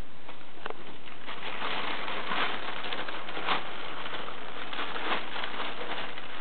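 Thin plastic bag crinkling and rustling as a cat moves around with its head inside it, with a few sharper crackles about two and a half, three and a half and five seconds in.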